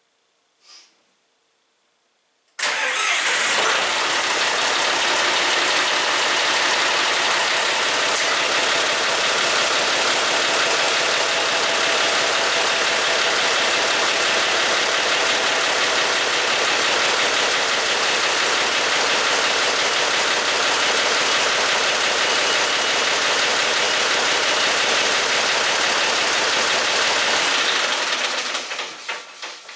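John Deere 5400 tractor's three-cylinder turbo diesel engine starting up on fresh oil. It catches abruptly about two and a half seconds in, idles steadily, and is shut off near the end, running down.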